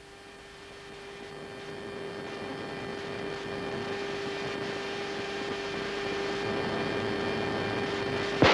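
Cabin noise inside an E-3D Sentry AWACS aircraft in flight: a steady hum under a rushing sound that slowly grows louder.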